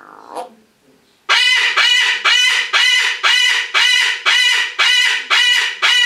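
Female eclectus parrot calling loudly, a steady run of short repeated calls about two a second, starting about a second in.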